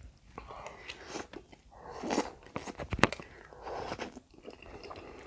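Close-up eating sounds: wet chewing of a mouthful of rice vermicelli and lontong in gulai, and sipping the curry broth from a spoon, with a sharp click about three seconds in.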